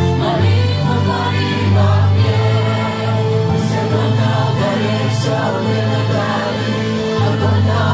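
A worship team of men and women singing a Russian worship song together into microphones, over sustained low accompaniment, played live through the hall's sound system.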